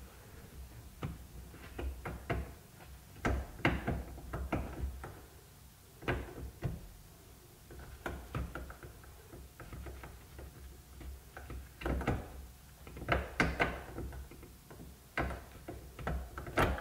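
Irregular clicks, knocks and light rattles of hands working among parts and wiring in a jet ski's engine bay. The knocks come in clusters, loudest around a dozen seconds in and again near the end.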